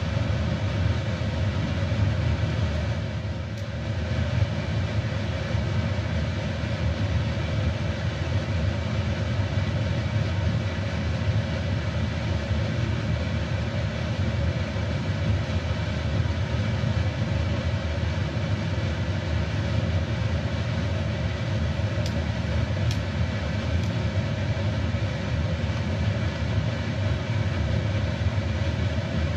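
Steady rumbling and bubbling of water at a rolling boil in a wok of pork spareribs on a gas burner, with a few faint clicks near the end.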